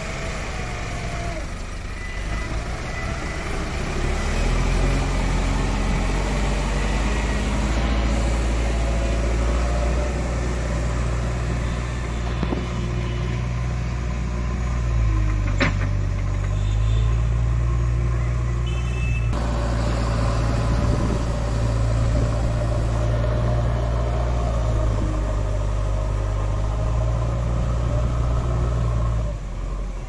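Diesel engines of heavy road-construction machines, a Mahindra Roadmaster G90 motor grader and then a JCB 3DX backhoe loader, running steadily as they work the fill, a constant low drone. One short sharp knock comes about halfway through.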